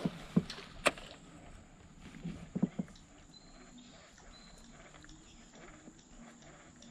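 A few sharp knocks and clicks in the first three seconds from handling a baitcasting rod and reel in a small boat, over quiet river ambience with a steady high-pitched whine.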